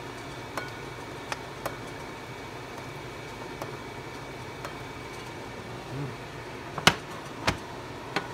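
Wooden spoon clicking and knocking against a stainless steel pot and a ceramic bowl while sauce is spooned out: a few light clicks, then three louder knocks near the end, over a steady faint hum.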